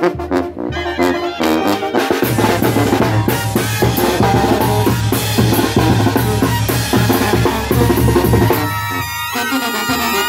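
Mexican brass band (banda de viento) playing. A bass drum with a mounted cymbal and a snare keep a driving beat under trumpets, saxophones and tubas, with a low tuba line through the middle. The band drops out briefly near the end, then the brass comes back in.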